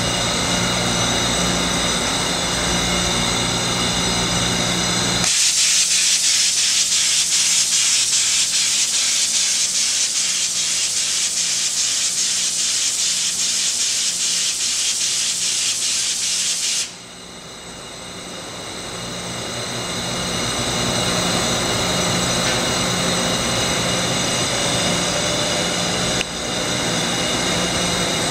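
Hyundai-Kia SKT21LMS CNC turning centre running with a steady hum. About five seconds in, a loud, fluttering spray hiss starts, lasts about twelve seconds and cuts off suddenly. The machine's running sound then builds back up gradually, with a click and a whine rising in pitch near the end.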